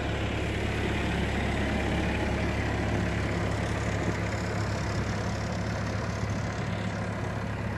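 Ditch Witch JT9 horizontal directional drill's engine running steadily at idle, a low, even drone.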